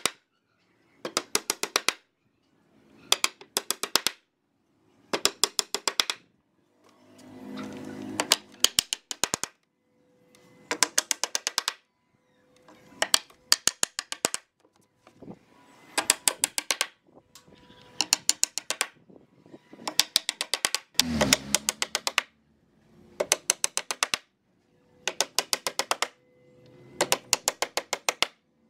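Claw hammer driving nails into pallet-wood slats: short runs of quick, sharp strikes, one run about every two seconds with silence between, and one deeper, duller blow about two-thirds of the way through.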